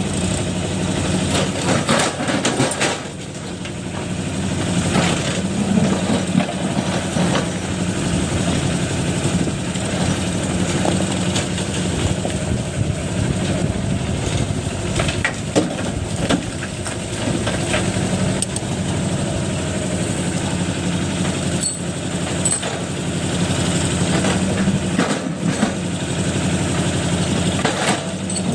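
Diesel engine of a TMX 20 backhoe loader running steadily under work, with a few scattered clanks and knocks from the machine.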